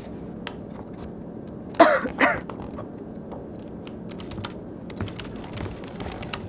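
Computer keyboard typing, scattered light key clicks over a steady low room hum, with the clicks coming more often in the second half. About two seconds in, a person makes two short, loud throat sounds.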